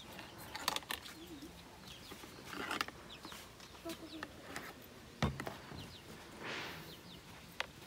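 Scattered clicks and clinks of spoons and dishes at a table, with a dull thump about five seconds in, faint bird chirps and faint voices in the background.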